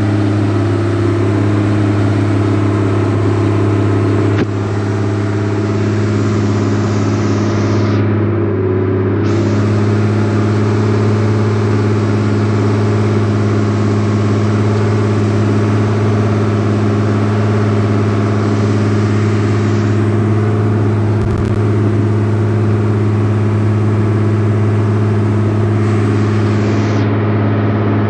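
Fishing boat's engine running steadily while the boat is under way, a loud, even drone with a constant pitch.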